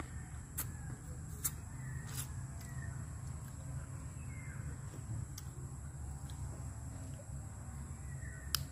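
Rural outdoor ambience: faint bird calls over a steady low rumble and a thin steady high whine, with a few soft clicks of food being bitten and chewed.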